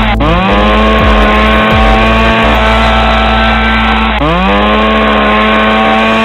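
Loud electronic background music: a buzzy synth whose chord swoops up into a new held pitch twice, over a steady heavy bass.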